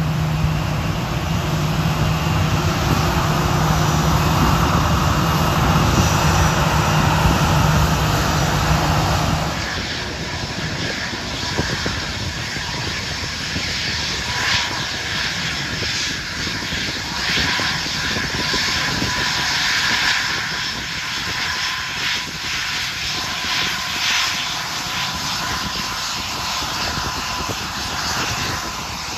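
Airbus A320 jet engines at taxi power as the airliner rolls past, a steady low hum over a broad roar. About ten seconds in this gives way to the quieter whine of a Gulfstream business jet's twin engines as it taxis.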